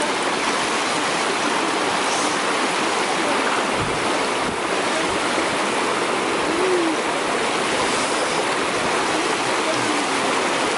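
Mountain river running: a loud, steady rush of water.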